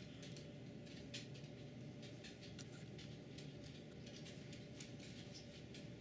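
Faint, irregular light ticking and pattering of falling snow, several small ticks a second, over a low steady background rumble.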